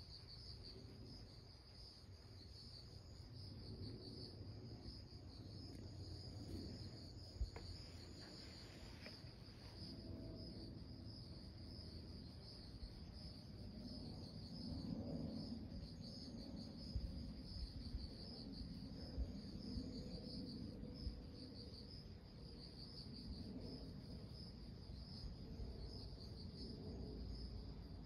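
Insects chirring steadily in a high, pulsing trill over a low background rumble, with a single click about seven seconds in.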